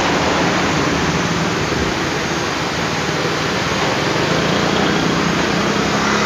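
Steady hum of a 2003 Honda CR-V's 2.0-litre engine idling, with an even rush of air noise, heard inside the cabin.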